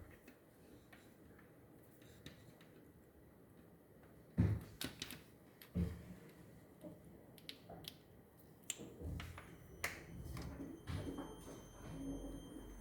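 The strange noise of a faulty Hiseeu security camera: a faint hiss broken, from about four seconds in, by irregular sharp clicks and low knocks. Faint steady high tones join near the end.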